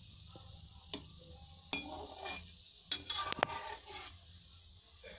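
Mava dough balls deep-frying in oil with a soft, steady sizzle. A metal slotted spoon clinks against the pan several times as they are stirred.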